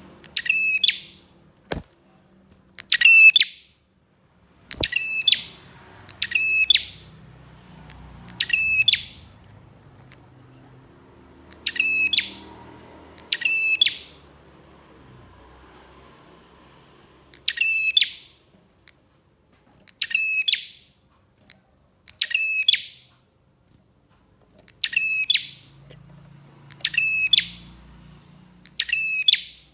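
Prenjak (prinia) calling over and over: a short, loud, high chirping phrase repeated every two or three seconds. There are two sharp clicks in the first five seconds.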